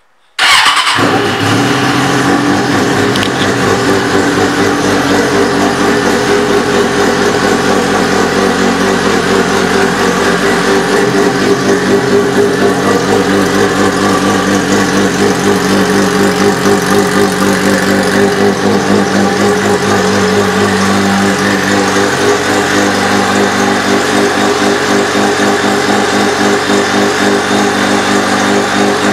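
A 2004 Suzuki Katana 600's inline-four engine, breathing through an aftermarket Two Brothers Racing exhaust, starts suddenly about half a second in and then idles steadily.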